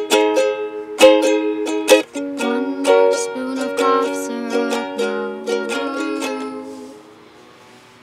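Ukulele strummed, the closing chords of the song ringing out and dying away about seven seconds in.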